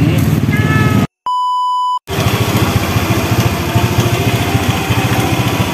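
Motorbike engine running, cut off about a second in by an edited-in steady beep tone lasting about a second, after which the engine running resumes.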